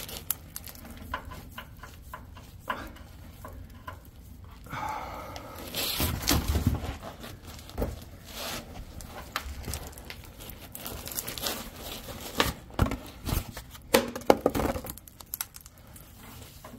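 Irregular rustling and scraping of someone shifting and handling things under a truck as he reaches up to hand-tighten a large spin-on diesel oil filter, with a few sharp clicks and knocks toward the end.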